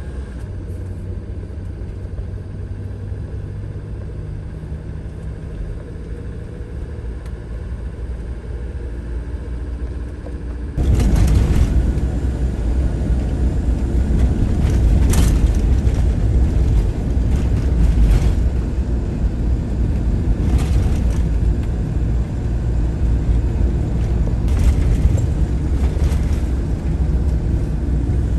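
Motorhome on the move: steady engine and road rumble that suddenly gets louder about eleven seconds in, with a few short knocks after that.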